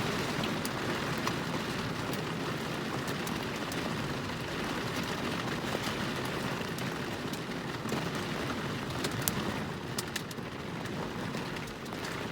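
Rain falling steadily in a thunderstorm, with scattered sharp ticks of drops striking a nearby surface, easing slightly near the end.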